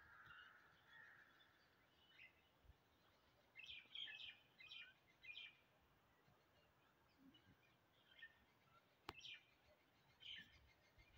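Near silence: faint outdoor ambience with scattered short, high bird chirps, and one sharp click about nine seconds in.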